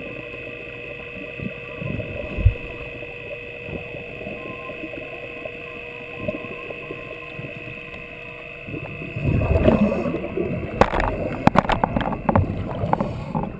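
Underwater sound inside a flooded descent tube: a steady hum with several constant tones over a low rumble. About nine seconds in it turns louder, with bubbling and crackling clicks as a mermaid breathing from an air hose passes close by.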